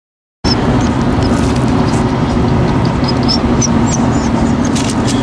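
Road and engine noise inside a moving car's cabin: a steady low rumble that starts abruptly about half a second in, with a few faint high squeaks over it.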